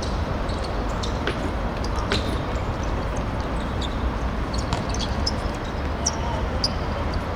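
Outdoor ambience of a football match: a steady low rumble and hiss with a few faint sharp knocks scattered through it.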